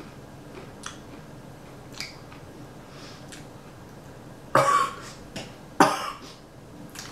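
A young man coughing twice, hard, about four and a half and six seconds in, after a few faint clicks. The coughing comes from the heat of a hot pepper he has just bitten into.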